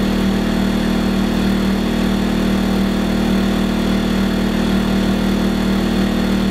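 WEN 2000-watt inverter generator's small four-stroke engine running at a steady speed with no load connected, warming up after its first start. It makes an even, unchanging drone.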